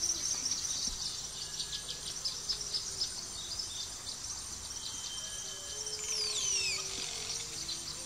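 Songbirds chirping in quick short notes over a steady high drone. About six seconds in, one whistled call glides steeply down in pitch.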